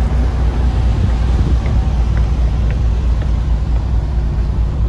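Steady low rumble of a car ferry's engines and machinery, heard from the open deck, with a few faint ticks partway through.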